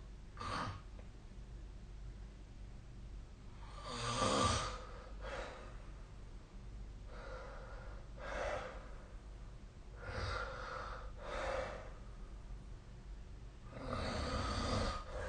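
A sleeping person snoring, with separate snores and breaths coming at uneven gaps of one to three seconds over a low steady hum. The loudest snore comes about four seconds in and a long one near the end.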